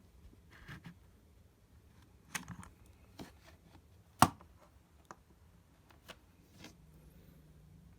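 Scattered small clicks and knocks of a soldering iron and its power cord being handled as the iron is turned off, with one sharp click about halfway through.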